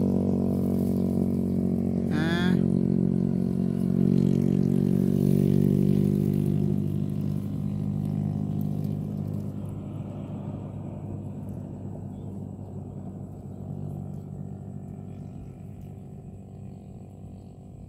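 A motor vehicle engine running at a steady pitch, loud at first and gradually fading away over the whole stretch. A short voice-like call about two seconds in.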